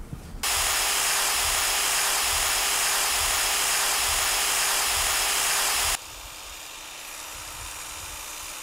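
Corded electric drill spinning a sanding disc while a small wooden lure blank is sanded to shape against it: a steady motor whine over a sanding hiss. About six seconds in the sound drops suddenly to a quieter, steady level.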